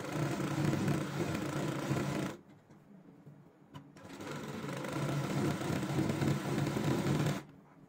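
Domestic sewing machine stitching a seam along a fabric strip, running in two bursts of a few seconds each with a short pause between them and a single click just before the second run.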